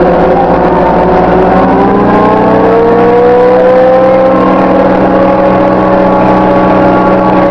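Komatsu WA75 wheel loader's diesel engine running loud under way, its pitch rising from about two seconds in and then holding steady as the machine gathers speed.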